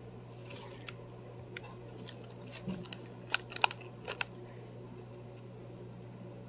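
A few faint clicks and light crunches from a spoon and cracker being handled while tuna salad is spooned onto a cracker, over a steady low hum.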